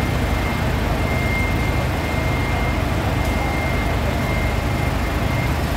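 Heavy forklift engine running steadily under a heavy load, a low, even drone with a faint high steady tone above it.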